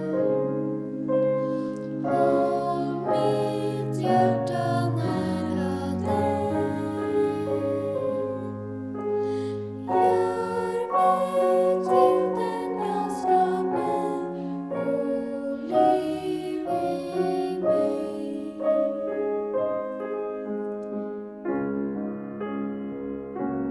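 A small group of young voices singing a song with piano accompaniment; the voices stop about nineteen seconds in and the piano plays on alone.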